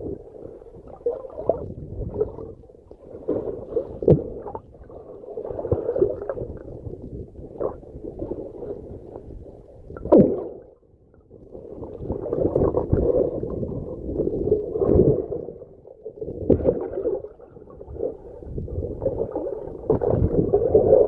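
Muffled underwater gurgling and rumbling of a scuba diver's exhaled bubbles, swelling and fading every few seconds, with a couple of sharp knocks.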